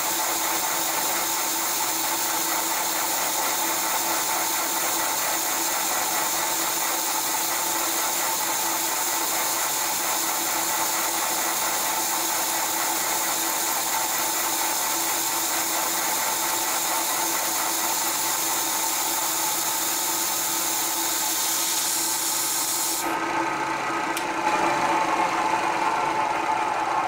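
Milling machine running a Woodruff keyseat cutter into the arbor shaft, cutting a key seat: a steady machine sound with a few held tones and a high hiss. The hiss cuts off suddenly a few seconds before the end while the mill keeps running.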